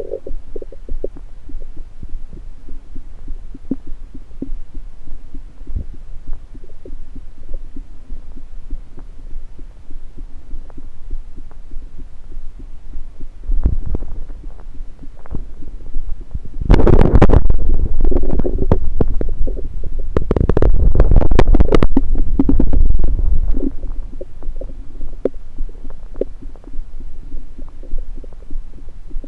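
Stomach and bowel noises heard through a stethoscope pressed on a belly: small gurgles over a low pulsing background, a brief louder gurgle about 14 seconds in, then a long, loud rumbling gurgle from about 17 to 23 seconds in.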